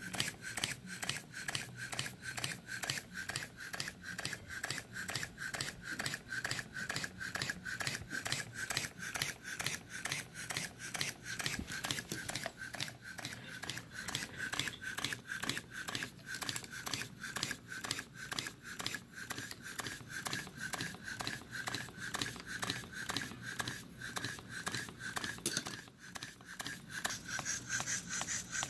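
Four-column reversing model steam engine running steadily in reverse on low-pressure air of about 2.5 psi, each stroke giving a short beat in an even, rapid rhythm. It makes a little more noise in this direction.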